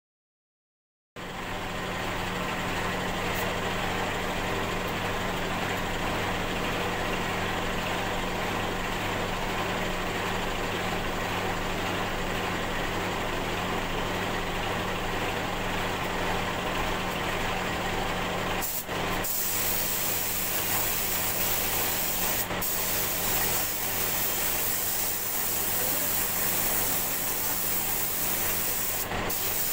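A steady motor drone with a humming tone starts about a second in. About two-thirds of the way through, the sharper hiss of a compressed-air paint spray gun joins it, broken off briefly a few times.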